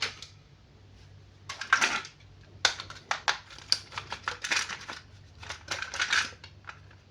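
Plastic toy packaging being handled and opened: irregular crinkles and sharp clicks in short clusters.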